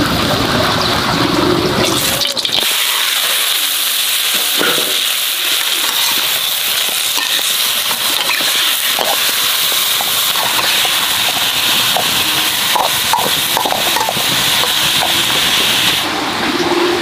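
Chopped pork with lemongrass and shallots sizzling in a hot pan: a loud, steady frying hiss with scattered spattering crackles, starting about two seconds in after a duller, lower noise and dropping away near the end.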